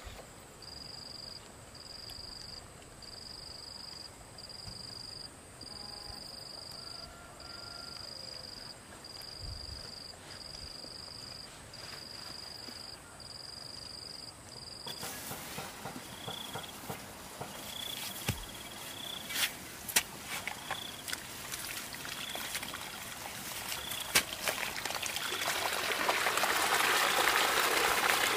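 An insect chirping in short, even high notes about once a second. About halfway the sound changes abruptly to trickling, splashing water with scattered clicks, growing louder toward the end.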